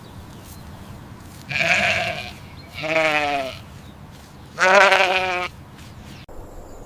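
Three bleating calls from a goat or sheep-like animal, each under a second long and about a second apart. The pitch wavers through each call, and the first call is harsher than the other two.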